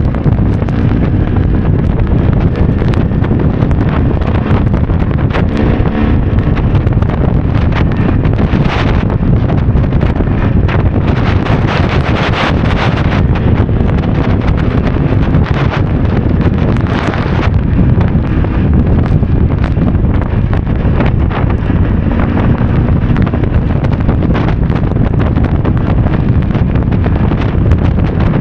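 Heavy wind noise buffeting the microphone, with the KTM EXC 300's single-cylinder two-stroke engine running underneath.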